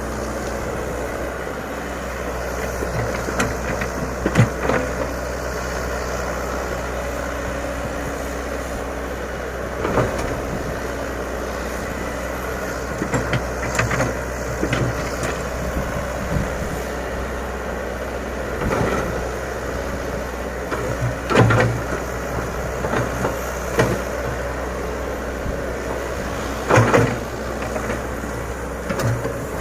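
Komatsu PC100 hydraulic excavator's diesel engine running steadily while it works, with short, sharp clanks from the machine every few seconds.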